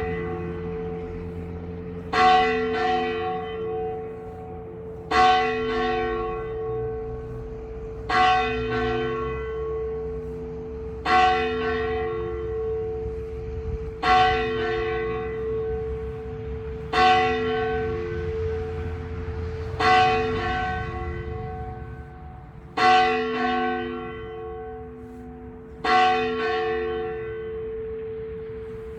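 A church bell tolled slowly: single strokes about every three seconds, nine in all, each ringing on into the next so that a steady hum carries between strokes.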